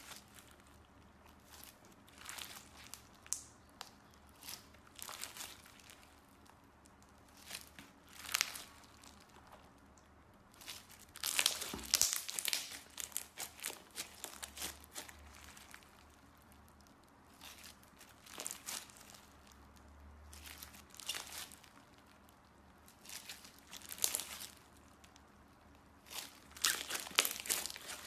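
Sequin-filled clear slime squeezed and kneaded by hand, giving irregular crinkly, crackling squishes. The loudest come in a quick cluster about halfway through and again near the end.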